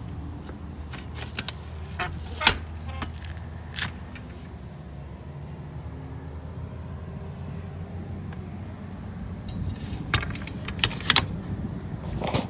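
Sharp metallic clicks and clanks of aluminium horse-trailer door latches and hardware being handled: a couple of strokes in the first few seconds and a cluster near the end, over a steady low rumble.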